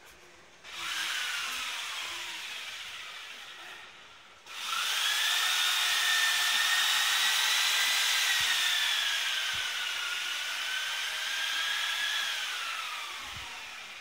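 A power tool whining in two runs: a short one whose pitch sinks as it slows, then a longer one of about nine seconds that wavers in pitch and winds down near the end.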